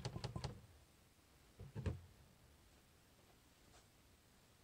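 Spatula stirring thick hot-process soap batter in a slow-cooker crock in quick regular strokes, stopping about half a second in. Then quiet room tone, with two soft knocks just before two seconds in.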